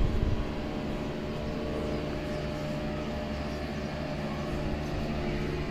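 A steady low motor hum, like an engine running, with a low thump at the very start.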